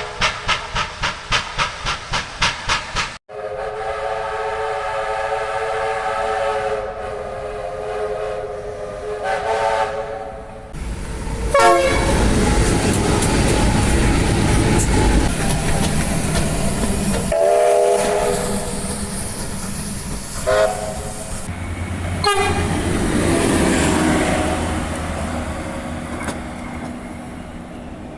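Train horns in a run of spliced clips. First comes a quick string of short toots, about four a second. Then come long horn blasts broken by short gaps, then the rumble and wheel clatter of a passing train with two more short horn blasts, and finally more train running noise.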